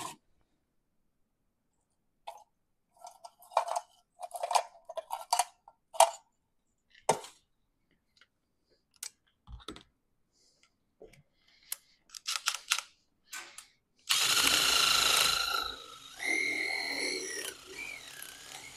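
Makita 18-volt cordless drill spinning a bit inside a mower-deck spindle housing's bearing bore, cleaning up an edge so the new bearing will seat. It starts loud about three-quarters of the way in, then runs lighter with a wavering pitch as it works the bore. Before it come scattered short knocks and scrapes of parts being handled.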